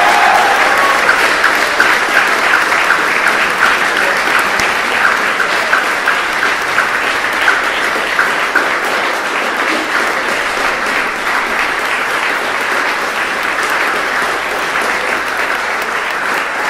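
Audience applauding steadily, with one person's claps standing out in an even beat for several seconds in the first half.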